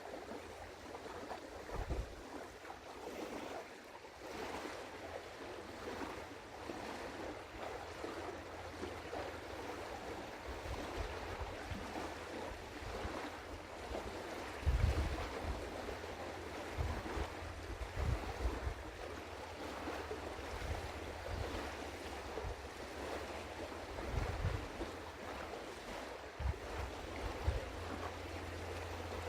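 Outdoor wind and water noise: a steady hiss, with gusts of wind rumbling on the microphone every few seconds, the strongest about halfway through.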